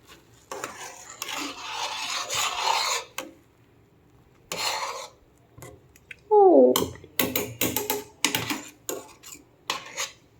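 Milk being poured into the pan of masala chai, a rushing hiss for a few seconds. Then a spoon stirs the tea, with a short falling squeak as it scrapes the pan about six seconds in and a run of quick metallic clinks against the pan near the end.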